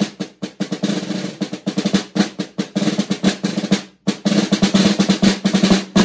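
Snare drum played solo with wooden sticks: rapid strokes and rolls with the snares buzzing, a short break about four seconds in, then the playing stops at the very end.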